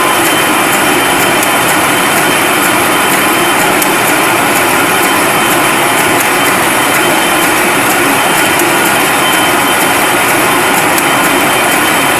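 Wolf paper sheeter with inline printing running at a steady pace, a continuous loud machine noise with a light, regular ticking over it.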